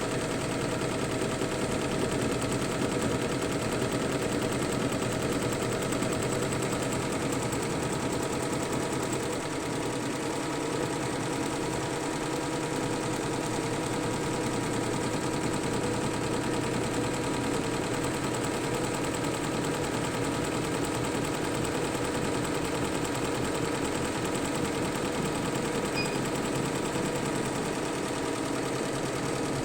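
Fuwei single-head, 15-needle computerized embroidery machine stitching: a rapid, steady clatter of needle strokes over a constant motor hum.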